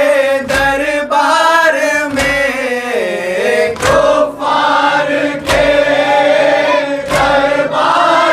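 Group of men chanting an Urdu noha, a Shia lament, in unison in a held, mournful melody. A regular thump of matam, palms striking chests, marks the beat about every second and a half.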